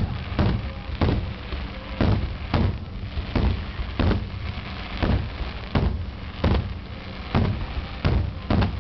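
Aerial firework shells bursting in quick succession: more than a dozen sharp booms, about one every half second or so.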